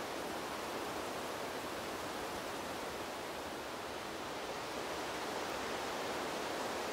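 Wind blowing through trees, a steady rushing that dips slightly mid-way and swells a little in the second half.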